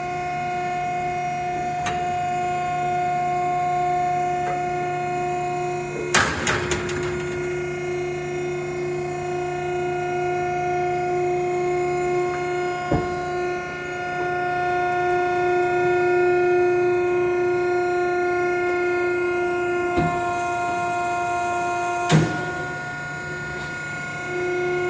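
Hydraulic pump of a vertical cardboard baler running steadily through a full compaction stroke, a constant pitched hum. A sharp clunk about six seconds in is the loudest moment, and fainter clunks follow later, as the ram presses down and returns automatically.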